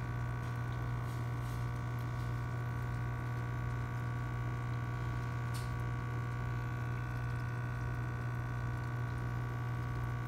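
Aquarium filter pump humming steadily with water trickling through the tank, and one faint tick about five and a half seconds in.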